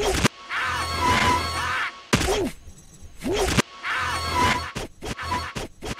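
Chopped-up film soundtrack: music mixed with crashing and clattering, with the same short snippet repeated several times over. Near the end it breaks into a rapid stutter of short fragments, about four a second.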